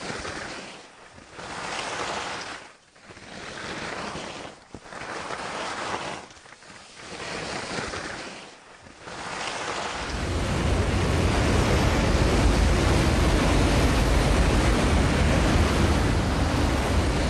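Skis swishing through snow in rhythmic turns, a swell of hiss about every two seconds. About ten seconds in it cuts to steady wind buffeting the microphone, with a heavy low rumble.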